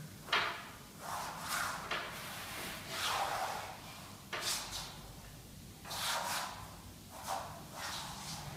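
Palms sliding a pasted vinyl wallpaper strip across the wall to butt its edge against the previous strip. It makes a series of short papery swishes, about ten, with pauses between them.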